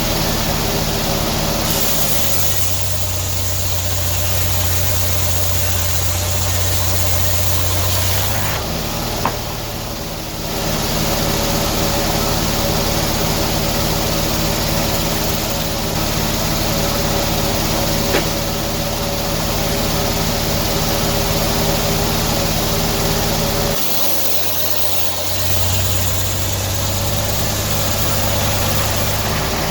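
Engine running steadily, with a deeper low hum coming in twice and its sound dipping briefly between, plus a single short click about nine seconds in.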